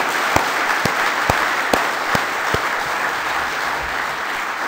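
Audience applauding at the end of a talk, a steady clatter of many hands that begins to taper off near the end.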